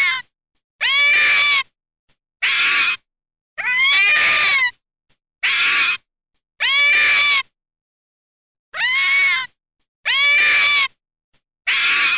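Red fox calling: a series of about nine drawn-out, wailing cries, roughly one a second, each rising and then falling in pitch.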